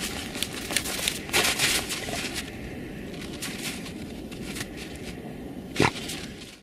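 Dogs digging in crusted snow and frozen ground: irregular scratching and crunching of paws and snout, with a denser flurry a little over a second in and one sharp, louder knock near the end.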